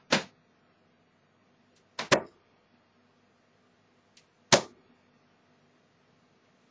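Steel-tip darts (22-gram, 85% tungsten) thudding into a bristle dartboard: a sharp knock right at the start, then two dart strikes about two and a half seconds apart.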